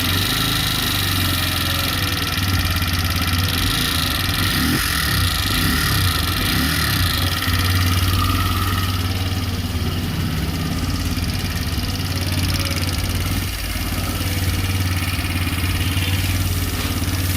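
TVS Raider 125's single-cylinder fuel-injected engine idling steadily, with the 'tik tik' tappet noise of loose valve clearance.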